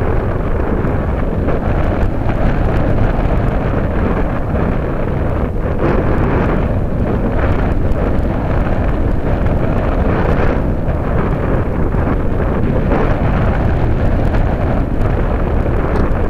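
Loud, steady rush and buffeting of air over the microphone of a keychain camera riding on a Radian powered glider in flight.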